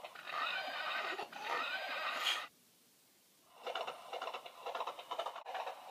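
A plush ride-on toy horse's built-in sound effect: a recorded horse whinny, then after a short silence a rhythmic run of galloping hoofbeats.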